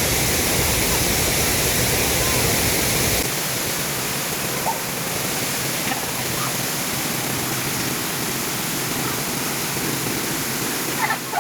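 Waterfall rushing, a steady full noise of falling water. About three seconds in it abruptly turns lighter, losing its deep rumble, with faint voices near the end.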